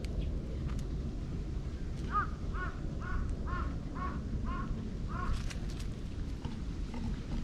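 A crow cawing in a quick run of about eight short caws, over steady low background noise.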